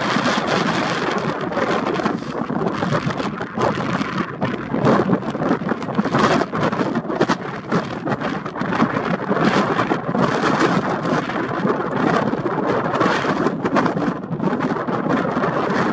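Strong gusty wind buffeting the camera's microphone: an uneven rushing and rumbling that surges and drops every second or so.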